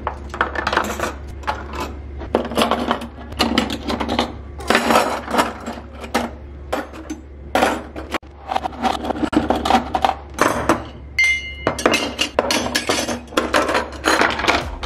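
Metal cutlery clinking and rattling as handfuls of gold-finish forks, spoons and knives are set down into a plastic drawer organizer tray, many irregular clinks in quick succession.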